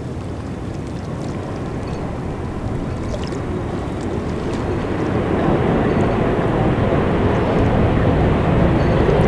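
Jet engine noise from a Boeing 787 rolling along the runway: a steady, deep rushing rumble that grows louder through the second half.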